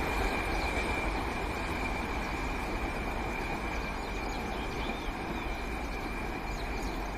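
Distant rumble of a train running on the rails, slowly fading, with a faint steady high whine.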